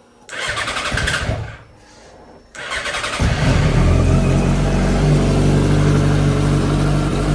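Yamaha R1 inline-four motorcycle engine being started: the starter cranks briefly, stops, cranks again, and about three seconds in the engine catches and settles into a steady idle. It is the first start after a cam chain tensioner repair.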